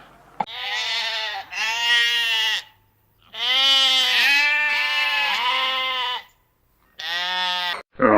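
A goat or sheep bleating: a series of drawn-out, wavering calls with short pauses between them, one long run of calls in the middle.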